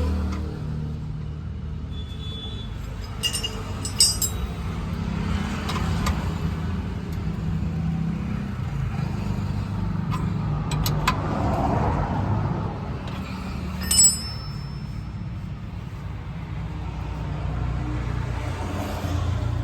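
A motor vehicle's engine rumbling steadily, with a couple of sharp metallic clinks about four seconds in and again near fourteen seconds, as of tools on metal while a new exhaust sensor is being fitted.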